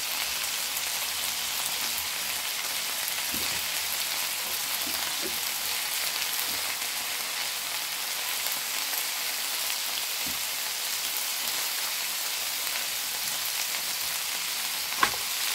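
Chicken breast fillets sizzling steadily in a hot grill pan, with one short click near the end.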